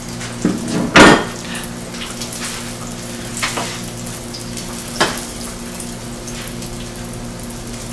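Pork roast sizzling as it browns in a hot frying pan, with a few short knocks of kitchen utensils, the loudest about a second in.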